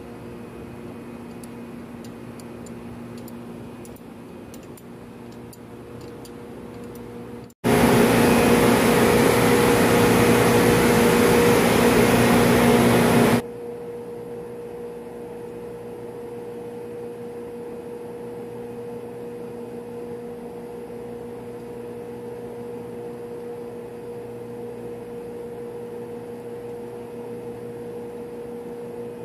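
Steady hum of machinery in a ship's refrigeration plant room, with a low tone and a second one an octave above it. About seven and a half seconds in, a loud even hiss cuts in abruptly, lasts about six seconds and stops suddenly.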